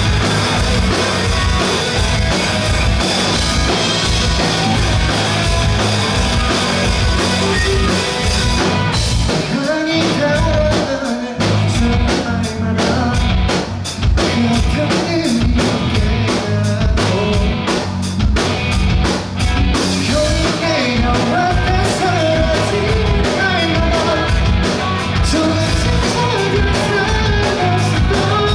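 Live rock band playing a song: drum kit, electric guitars and bass under a sung vocal line. The drums briefly thin out about nine seconds in before the full band comes back.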